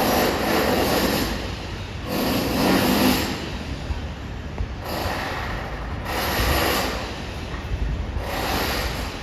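Renovation work noise: a power tool running in repeated bursts about a second long, every couple of seconds, with a harsh, hissing grind.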